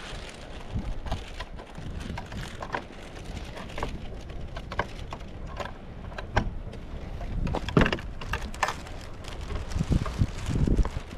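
Footsteps crunching in snow, an irregular series of sharp crackles, with wind rumbling low on the microphone.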